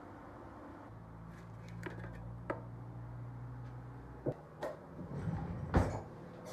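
Dishes and containers being handled on a kitchen table: a few sharp clicks and knocks, coming thicker in the second half with the loudest knock near the end. A steady low hum runs under the first part and stops about four seconds in.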